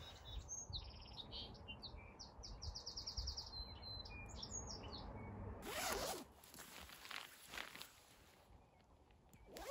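Small birds chirping, with short high notes and one quick trill. About six seconds in comes the louder rasp of a sleeping-bag zipper being pulled open.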